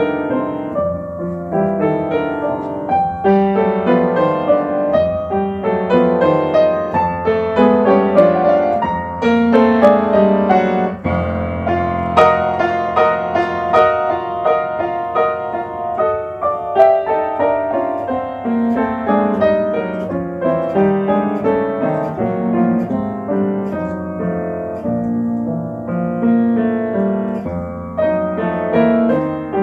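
Upright piano played from sheet music, a steady flow of notes and chords without a break.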